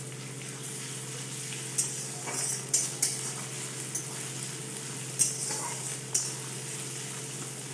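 Chopped onion and crushed ginger sizzling in hot oil and ghee in a metal kadai, while a metal spatula stirs them, scraping and clinking against the pan a few times.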